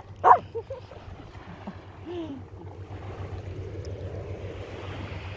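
A dog barks once just after the start, ending a quick run of barks. After that there is a steady wash of wind and small waves lapping on the beach.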